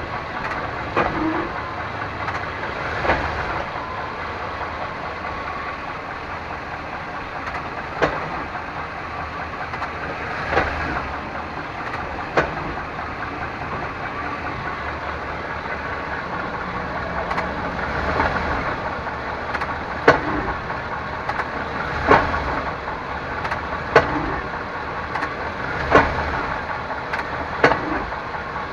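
A 1998 Suburban K1500's 5.7 L V8 idles while its 4L60E automatic is shifted between park and drive, each shift giving a sharp clunk. The clunks come several times, a few seconds apart at first and about every two seconds in the latter part.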